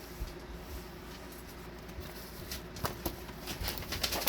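Packaging from a diamond-painting kit being handled: scattered light taps and rustles, turning into a quick run of sharp clicks and taps over the last second or so.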